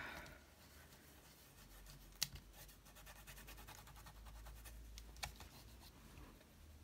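Faint rubbing and scratching of fingers on cardstock, with two light clicks about two and five seconds in.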